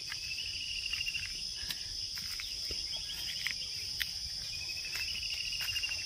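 Insects calling steadily: a continuous high drone, with a rapidly pulsed chirping trill that comes and goes three times.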